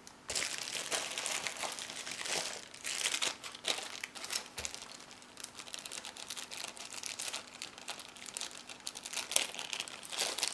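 Wrapping being handled and crinkled as a padlock is unpacked from a parcel: a steady run of irregular crackles and rustles, with louder handfuls near the start, around three seconds in and near the end.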